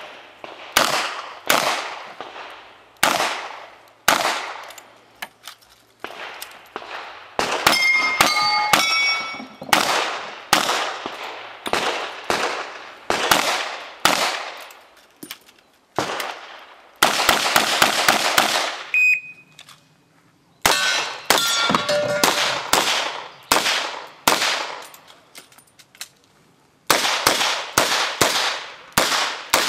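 Revolver shots fired in quick strings, each crack trailing off in an echo, with short pauses between strings. A few hits are followed by the ring of steel targets.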